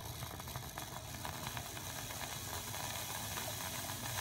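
Bezzera Strega espresso machine running with its drained boiler refilling: a steady hiss of water and air over a constant low hum.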